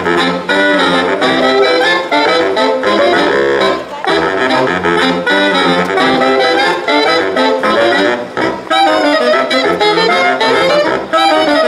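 Loud upbeat dance music led by saxophone and brass over a steady beat, played back over loudspeakers.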